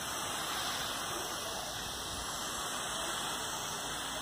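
Steady hiss of a sprayer misting liquid over potted orchid leaves.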